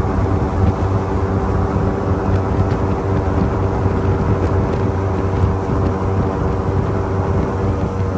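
Airboat's engine and propeller running at a steady speed, a loud, unbroken drone.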